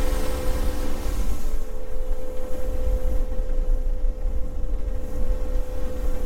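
50 hp outboard motor running steadily as a small motorboat travels at speed, with wind rumbling on the microphone. A hiss of spray and wind fades about a second and a half in.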